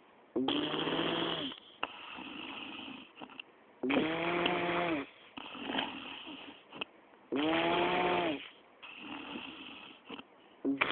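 A person snoring heavily in sleep after heavy drinking. Three loud in-breath snores come about three and a half seconds apart, a fourth starts at the very end, and softer breaths lie between them.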